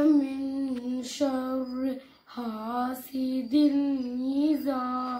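A female voice reciting a surah of the Quran in Arabic, chanted in long melodic phrases with held, wavering notes and short breaths between phrases.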